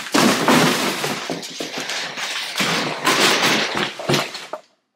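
Rustling and clattering from unpacking a boxed pots-and-pans set, with many sharp knocks. It cuts off abruptly near the end.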